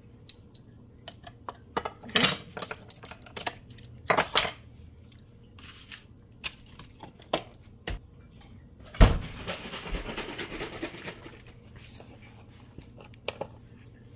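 A metal spoon clinking and tapping against a clear plastic food processor bowl as miso is knocked off it, with utensils clattering on a wooden counter. A louder thump about nine seconds in is followed by a couple of seconds of rustling.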